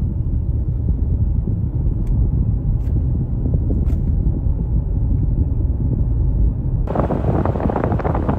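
Steady low road rumble inside a moving car's cabin. About seven seconds in, it gives way abruptly to wind buffeting the microphone outdoors.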